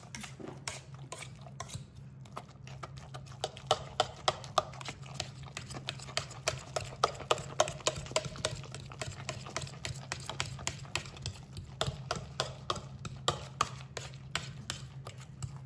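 Metal potato masher pounding boiled potatoes in a stainless steel saucepan: a quick, uneven run of knocks and squelches, about two or three a second, as the masher hits the bottom of the pot. The knocks grow louder a few seconds in. A steady low hum runs underneath.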